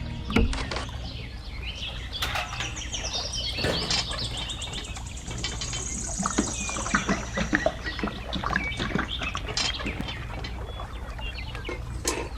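Birds chirping over a steady low hum, with scattered sharp clicks and knocks.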